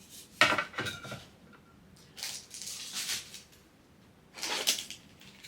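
Handling of small parts and packaging at close range: a sharp click or knock about half a second in, then a few short bursts of rustling and scraping.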